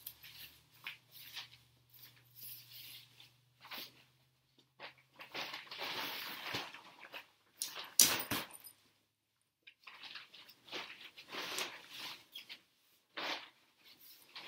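Nylon tent fabric rustling and shifting in irregular bursts as a dome tent is flexed up on its poles, with one sharp snap about eight seconds in, the loudest sound.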